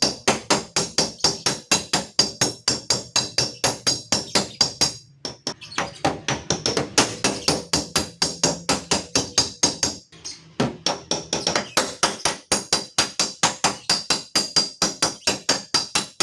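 Rapid, steady hammer taps on the sheet-metal skin of a Honda Brio's car door as a dent is knocked out, about five ringing metallic blows a second, with short pauses about five and ten seconds in.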